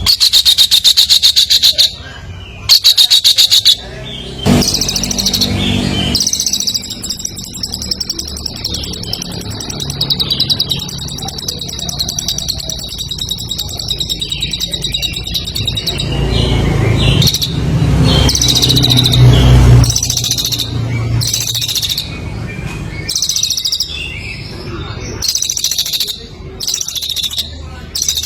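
Competition songbird singing loudly: bursts of very fast, rattling high chirps broken by short gaps, with one long unbroken trill through the middle.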